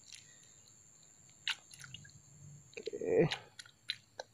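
Faint, scattered clicks and soft squishing as hands work the fishing hook and bait between catches, under a faint steady high whine. A man says "oke" about three seconds in.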